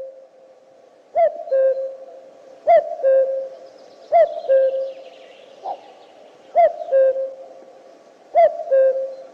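A bird's low two-note hooting call repeated about five times, each a short falling note followed by a held, steady note, with a fainter single note between.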